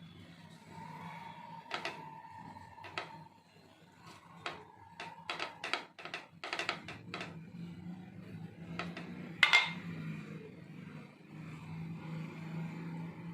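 Light knocks and clicks of a cutter and dishes on a hard kitchen surface as bread slices are pressed into rounds. A few scattered taps give way to a quick run of about a dozen around the middle, then one louder clank a little past two-thirds through, over a low steady hum.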